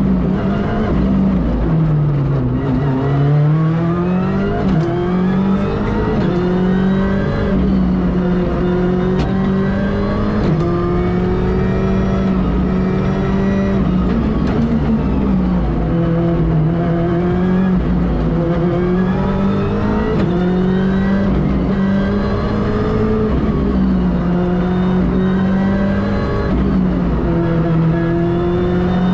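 Ford Fiesta R5 rally car's turbocharged 1.6-litre four-cylinder engine heard from inside the cabin at full stage pace, revving up in repeated rising sweeps with a quick drop at each gear change. About two seconds in the revs fall away for a slower corner, then climb again as it pulls out.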